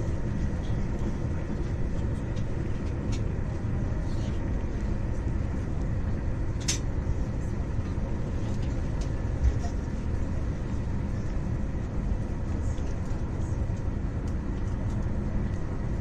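Steady low rumble of an Italo high-speed electric train running, heard from inside the passenger cabin, with a single sharp click a little before halfway.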